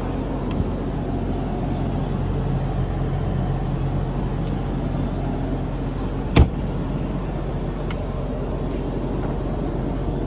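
A steady low mechanical hum, with a single sharp knock about six seconds in and a couple of faint ticks.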